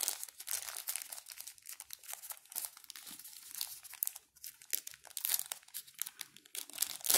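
Thin translucent plastic wrapper crinkling and crackling in the fingers as a small charging cable is unwrapped from it: a continuous run of quick crackles.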